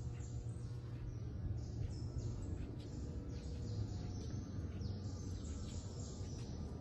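Birds chirping: many quick calls falling in pitch, two or three a second, over a steady low background rumble.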